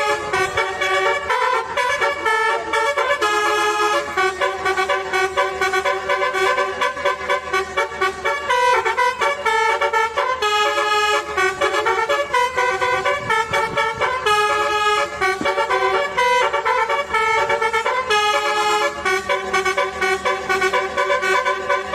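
A continuous, fast melody of horn-like notes, the pitch jumping from note to note several times a second.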